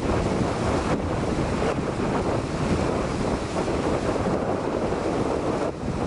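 Wind buffeting the microphone in a steady, loud rush, with deep rumbling at the low end.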